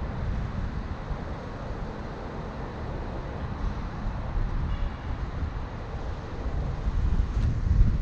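Low, steady rumble of a car driving along city streets: road and wind noise, growing louder near the end.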